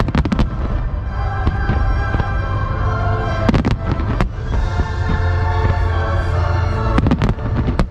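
Aerial firework shells bursting in quick clusters of bangs, one volley right at the start, another about three and a half seconds in and another about seven seconds in, over loud accompanying music.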